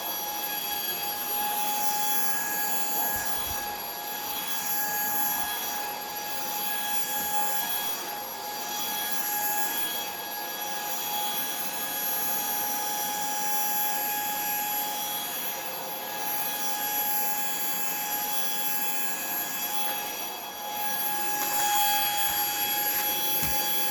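Puweike cordless stick vacuum running steadily: a high motor whine over rushing airflow, swelling and dipping slightly every couple of seconds.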